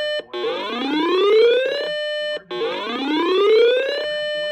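Radio emergency alert tone made of repeating rising whoops, about one every two and a half seconds. Each whoop climbs steadily in pitch, holds a steady tone for a moment, then cuts off.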